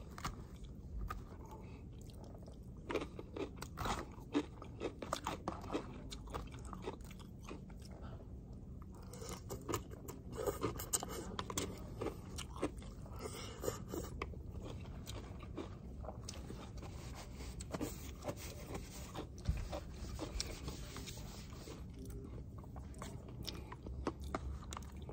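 A person chewing and biting a mouthful of rice and grilled pork close to the microphone, with small clicks and scrapes of a plastic fork and spoon against the food container. The clicks come in clusters a few seconds in and again around the middle.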